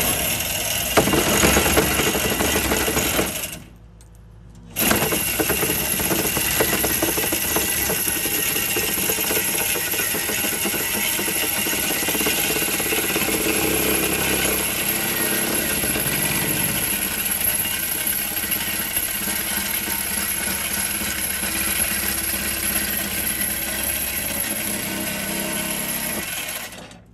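Jackhammer hammering steadily, driving a Manta Ray earth anchor's drive rod into the soil of the bank. It stops for about a second roughly four seconds in, then runs on.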